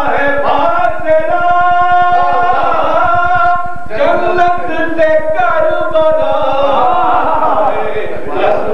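Unaccompanied singing of an Urdu Shia devotional verse, the voices holding long steady notes, with a short break about four seconds in.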